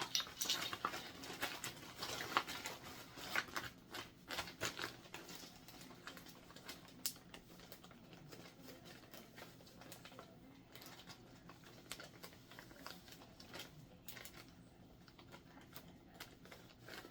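Gear being handled and unpacked from a bag: irregular soft rustling of fabric and packaging with scattered small clicks and taps, busiest for the first few seconds and then sparser.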